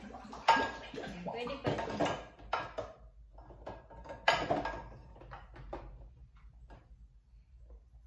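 Frying pans knocking and clattering against a dishwasher's wire rack and other dishes as they are fitted in, with a few sharp, briefly ringing knocks. The loudest come about half a second in and about four seconds in, followed by lighter clinks.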